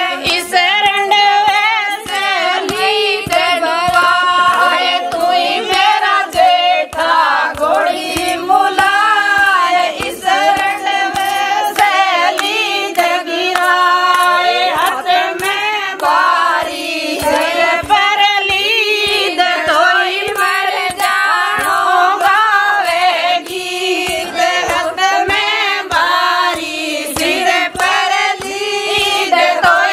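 Group of women singing a wedding folk song together, with steady hand claps keeping the beat.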